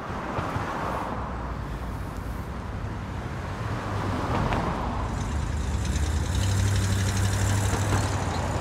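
Street traffic: cars driving past through an intersection, each one swelling and fading, and a deeper engine hum growing loudest in the second half.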